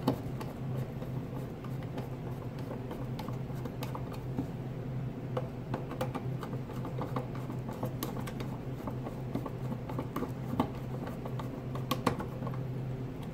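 Small clicks, taps and metal scrapes as a single-pole toggle switch is pushed into a metal electrical box and a screwdriver turns its mounting screw. There are a few sharper clicks in the second half, over a steady low hum.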